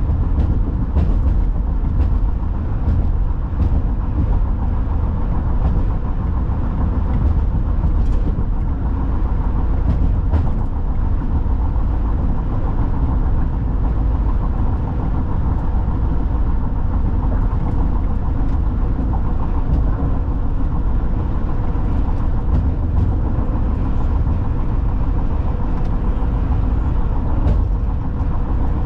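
Steady road rumble of a car driving at highway speed on concrete pavement, with faint clicks now and then.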